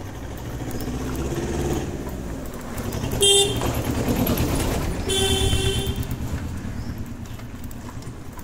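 A motor vehicle passes close in a street, sounding its horn twice: a short toot about three seconds in, then a longer honk lasting about a second shortly after, while its engine rumble swells and fades.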